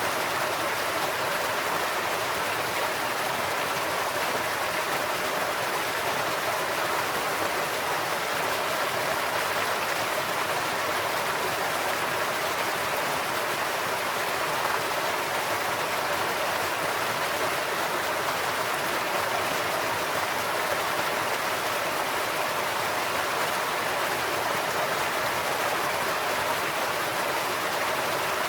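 Stream water flowing over a man-made farm-road crossing and falling off its edge: a steady, even splashing rush with no breaks.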